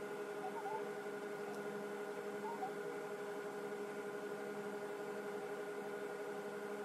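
A steady hum of several level tones, like a running appliance or electrical hum, with a few faint short chirps about half a second and two and a half seconds in.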